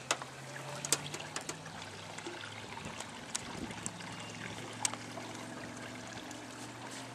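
Water trickling and lapping at close range, with a steady low hum and a few sharp clicks from handling.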